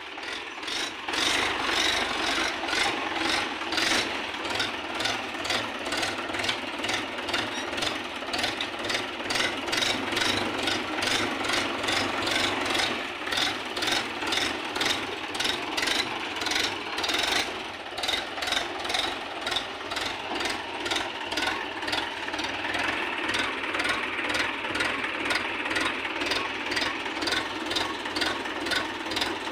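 Mahindra 585 DI tractor's four-cylinder diesel engine running, with an even rapid clatter pulsing several times a second.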